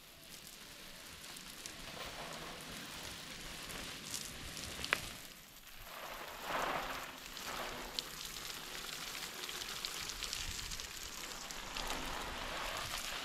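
Spray of water pattering onto dry soil and plant leaves like rain, swelling and fading as the spray is swept about. There is a sharp click about five seconds in and another about three seconds later.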